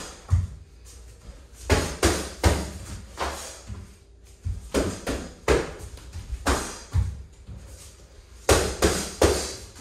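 Sparring strikes: boxing gloves and kicks smacking against gloves and shin guards, with feet thudding on a wooden floor. The hits come irregularly, about a dozen sharp smacks, some in quick pairs or short combinations.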